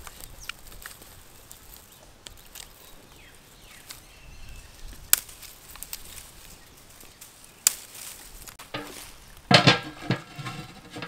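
Small fire of dry grass and twigs crackling and snapping as it is lit and fed by hand, a few sharp isolated cracks. Near the end a large metal cooking pot is set down on the brick stove, clanking with a brief metallic ring.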